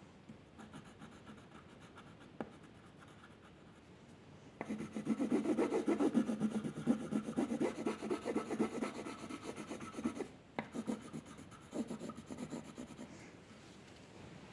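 A drawing tool rubbing quickly on paper in rapid back-and-forth shading strokes. Faint at first, it gets louder about a third of the way in, breaks off briefly, then goes on more lightly.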